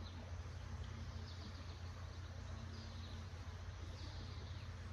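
Small birds chirping faintly, a few short high falling chirps scattered through, over a steady low rumble of outdoor background noise.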